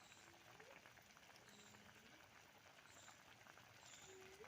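Near silence, with only faint scattered background sounds.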